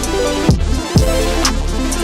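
Background electronic music with a steady beat: a deep bass line with sweeping bass drops about half a second and one second in, under bright hi-hat ticks and held synth chords.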